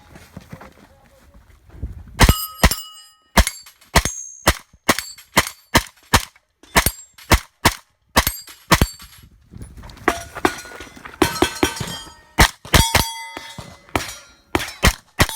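Rapid gunshots in a steady string, about two or three a second, starting about two seconds in, many followed by the short ring of steel target plates being hit.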